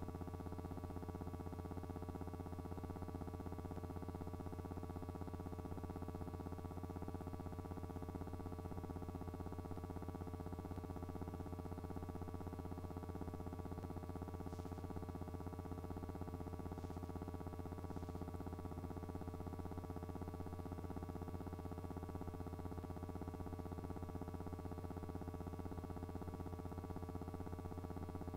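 Steady electrical hum with a buzz of fixed overtones, unchanged throughout, with a few faint ticks: the background noise of a silent film transfer, not a sound from the trucks on screen.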